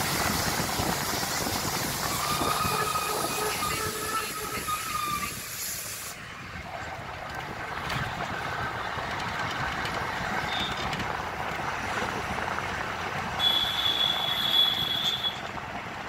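Bus interior ride noise: steady road and engine noise with rattling. Over it come two high-pitched brake squeals, one about two seconds in lasting some three seconds, and a higher, louder one near the end.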